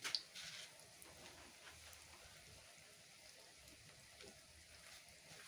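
Hot oil sizzling faintly as a tofu-and-egg omelette deep-fries in a wok, with a few sharper crackles in the first half-second.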